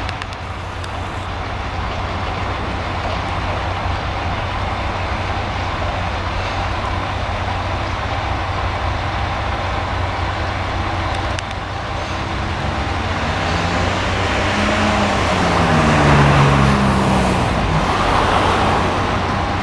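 Moka Railway diesel train arriving at the station over a steady low rumble. From about twelve seconds in, its engine note grows louder and slides down in pitch as the train slows, loudest about three quarters of the way through.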